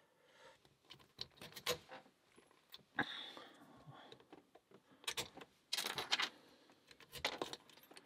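Light metal clicks and scraping of a pick and tension wrench working the pin tumblers of a Master Lock No. 3 laminated steel padlock, then a sharp click with a short ring about three seconds in as the lock opens. Further scattered metallic clicks and rattles follow as the padlock is handled in the vise.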